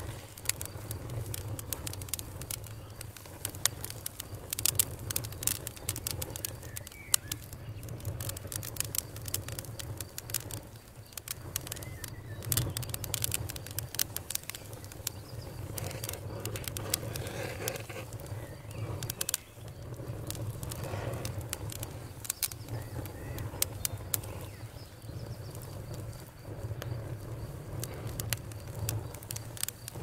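Wood logs burning in an open fireplace, crackling with frequent, irregular sharp pops and snaps over a steady low rumble.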